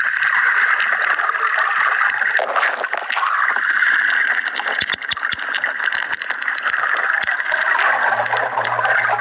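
Underwater water noise picked up by a submerged camera: a steady rushing hiss with scattered faint clicks and crackles. A low steady hum comes in near the end.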